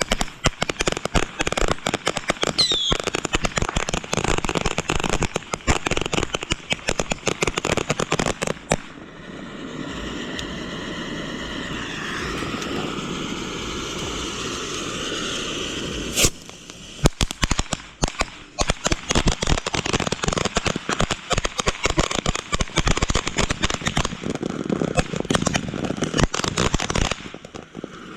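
Consumer fireworks crackling in long runs of rapid, dense pops. About nine seconds in they give way to a steady hiss, broken by one sharp bang, and then the rapid popping returns until it stops near the end.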